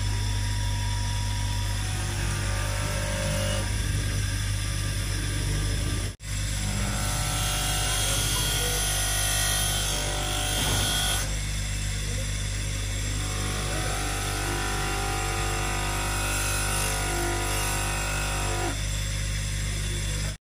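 An electric power tool running steadily, with a strong motor hum, of the kind used to strip rust from the saw's iron blade. The sound drops out for an instant about six seconds in, then carries on.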